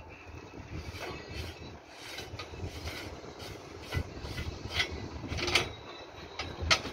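Scattered metallic clinks and scrapes from a steel adjustable shoring prop being handled and adjusted by hand, the sharpest near the end, over a steady low rumble.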